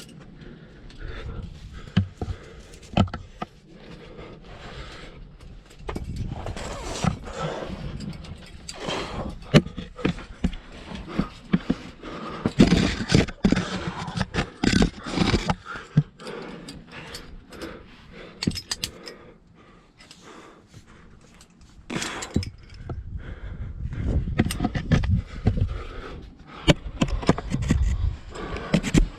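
Climbing hardware clinking and jangling and body and shoes scraping against rock as a climber works up a rock chimney, in irregular bursts with low rumbling handling noise on the microphone.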